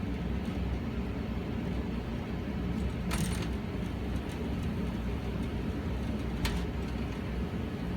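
New Honeywell Goodman gas furnace running with a steady low rumble, broken by two sharp bumps, one about three seconds in and a shorter one about six and a half seconds in. This is the knocking that sounds like someone kicking inside the furnace, a fault a technician tried to cure by blowing debris out of the flue drain.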